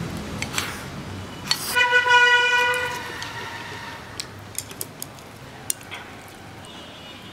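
A vehicle horn sounds once, a steady single-pitched tone about a second long. A few light clicks follow, chopsticks tapping a ceramic bowl.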